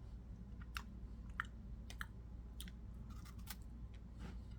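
A person chewing a cream-filled cracker: scattered small crunches and mouth clicks at an uneven pace.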